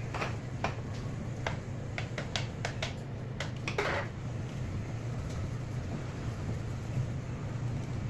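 A run of about ten sharp clicks in the first four seconds, over a steady low hum.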